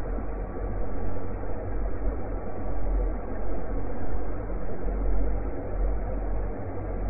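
Deep, steady rumbling noise that swells and dips a little, with no distinct events: an invented soundscape meant to be the sound of a fictional exoplanet.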